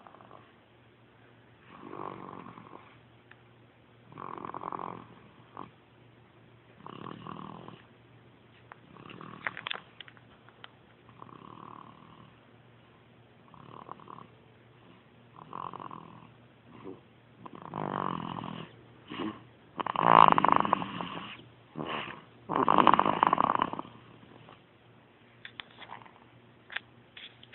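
Snoring in sleep: a noisy snore about every two to two and a half seconds, growing louder in the later snores.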